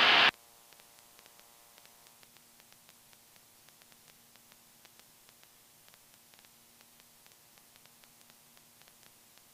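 Near silence: a faint steady electrical hum with scattered faint clicks.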